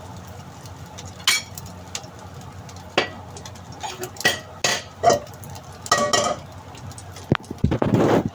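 Metal cooking utensils knocking, clinking and scraping against a frying pan and dishes: about a dozen irregular clanks, a few ringing briefly, over a low steady background hiss.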